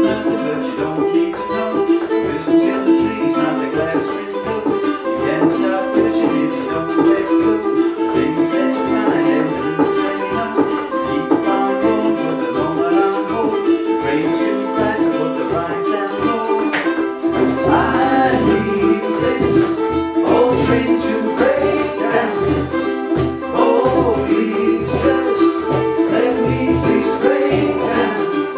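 Small ukulele band playing a song: ukuleles strummed in a steady rhythm over hand percussion, with a deeper bass line coming in about 17 seconds in.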